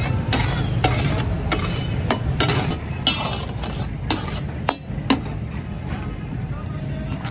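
Metal spatula stirring and striking a large iron tawa over food frying in hot oil. There are sharp clicks about once or twice a second, over a steady sizzle and a low rumble, and the clicks thin out after about five seconds.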